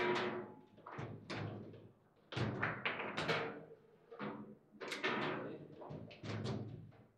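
Table football being played hard: the ball cracking off the players' figures and the table walls, and rods slammed and spun, in quick clusters of sharp knocks with short lulls between.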